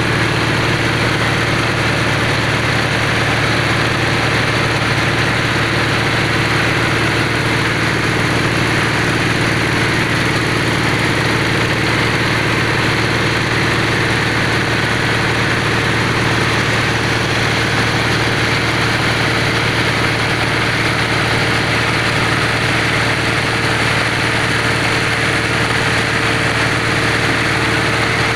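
Engine of a borewell drilling machine running steadily at an even speed.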